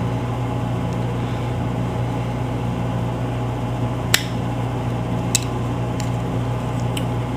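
Steady low electrical hum of the room background. Four sharp metallic clicks come in the second half, from the steel multi-tool being handled.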